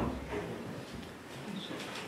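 Quiet room tone with faint handling noises: light rustles and small clicks from papers and a laptop being handled at a lectern.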